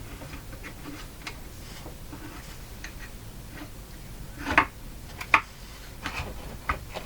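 Irregular light clicks and taps of wooden cabinet parts being handled, with two sharper knocks a little past halfway.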